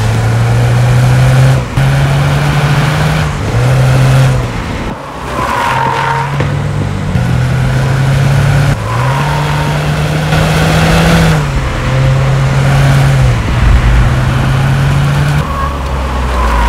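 Subaru WRX S4's 2.4-litre turbocharged flat-four, breathing through an STI performance muffler, under hard acceleration. Its pitch holds, then drops and climbs in steps as it shifts. A few brief tyre squeals come through in the corners.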